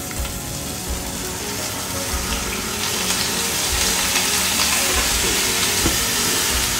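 Polao rice frying in hot oil with browned onions, a steady sizzle as it is stirred in the pan, growing louder about three seconds in as the rice heats.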